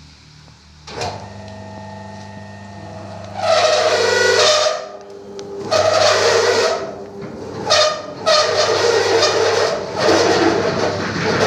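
Electric carpet-washing machine running. A low motor hum starts about a second in, then loud rushing, whining bursts come and go several times.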